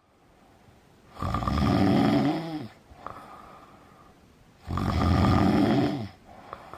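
A person snoring: two long snores about three and a half seconds apart, each falling in pitch as it ends.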